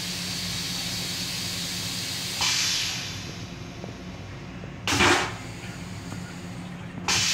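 Metro-North M7 railcar vacuum toilet flushing. A hiss starts about two seconds in and fades. A loud, short whoosh comes about five seconds in as the bowl is sucked empty, and another hiss starts near the end.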